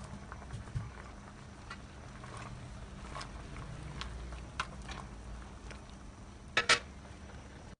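Kitchen handling at a cooking pot: scattered light clicks and taps over a low steady hum, with a sharper double knock near the end as a utensil touches the pot.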